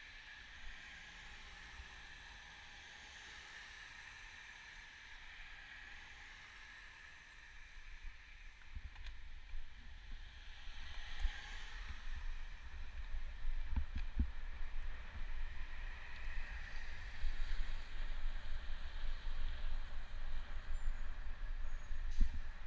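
Ride noise on a bicycle commute: a faint steady hiss, then a low rumble that grows louder from about eight seconds in, with a few knocks midway.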